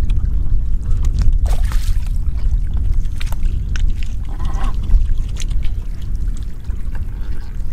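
Fish splashing and flopping in shallow muddy water as they are grabbed by hand, with scattered wet slaps and sloshes over a steady low rumble of wind on the microphone.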